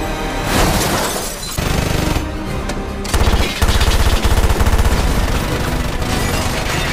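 Action-film soundtrack: the score plays under rapid automatic gunfire from the Batmobile's mounted machine guns, which start about three seconds in and keep firing.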